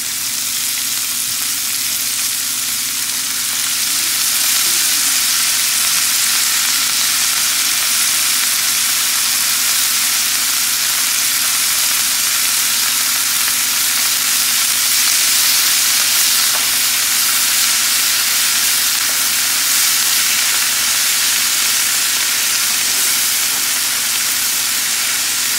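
Freshly added wet spinach sizzling in hot oil in a frying pan with onions and nuts: a loud, steady hiss that swells a little a few seconds in.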